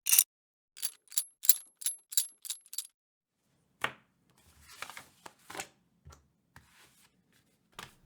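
A typewriter being set up: a quick run of sharp metallic clicks and clacks over the first three seconds, then a soft rustle and a few more scattered clicks.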